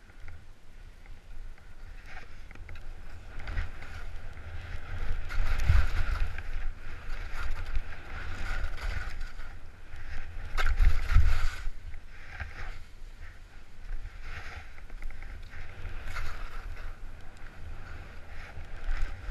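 Snow hissing and scraping under a rider descending fresh snow, swelling in a loud rush about five seconds in and again near eleven seconds. Wind buffets the action camera's microphone as a low rumble.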